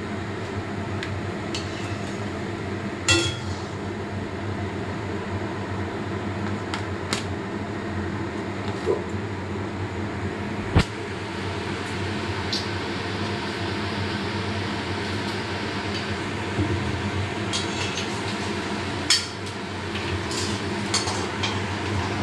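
Hot oil sizzling around chicken balls deep-frying in an aluminium wok, over a steady low hum. Several sharp clinks of a metal skimmer against the wok stand out, the loudest a little after a third of the way in.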